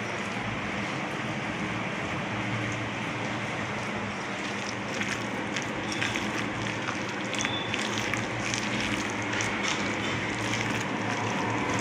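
Thick semolina (rava) and curd batter being stirred by hand: soft irregular squelches and clicks over a steady hiss.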